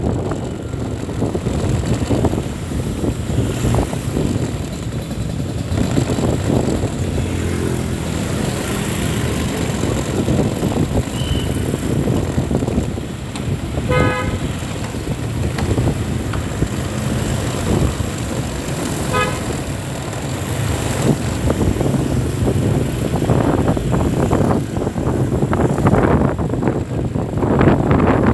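Road traffic with engines running steadily, and a vehicle horn tooting twice: once about halfway through and again about five seconds later.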